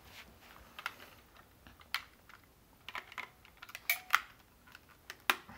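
Batteries and a plastic battery cover being fitted into a portable radio: a series of small, irregular clicks and knocks, the loudest few in the second half.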